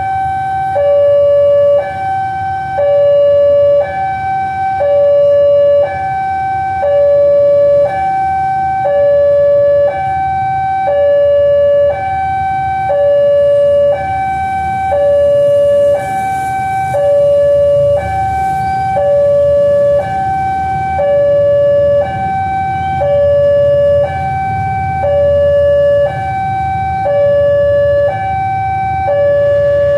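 Railway level-crossing warning alarm sounding its two-tone electronic signal, a higher and a lower tone alternating about once a second, warning that a train is approaching while the barrier is down.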